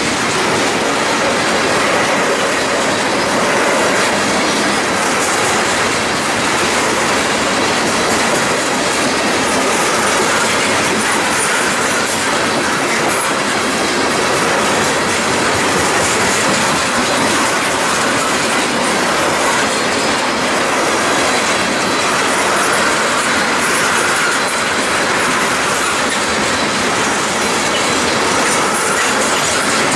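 Freight train of tank cars rolling past close by: loud, steady noise of steel wheels running on the rails.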